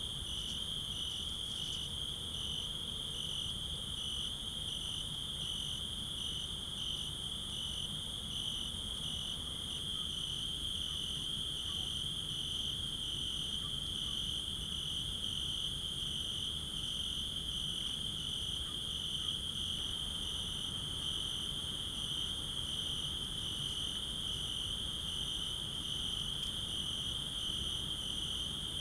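Night chorus of crickets stridulating: a steady high-pitched trill, with a second, fainter song pulsing about twice a second above it.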